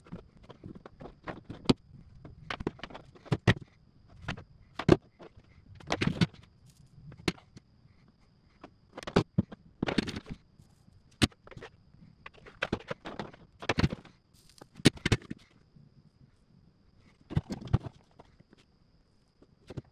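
Hand tools and wire being handled on a workbench: irregular clicks, knocks and short rustles from wire strippers cutting and stripping insulation and tools being picked up and set down. A faint steady high whine runs underneath.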